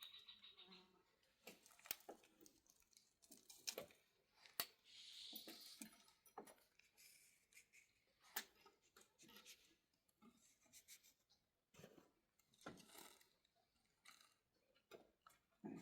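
Near silence broken by faint, scattered clicks and light knocks, with a brief soft rustle about five seconds in.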